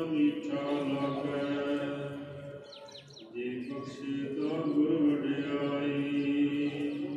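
Sikh devotional chanting with long held notes, in two drawn-out phrases with a short break about two and a half seconds in. Small birds chirp in the break and faintly over the second phrase.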